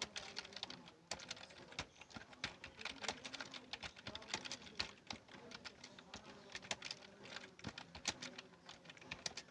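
Typing on a computer keyboard: a quick, uneven run of key clicks, several a second, during a typing speed test.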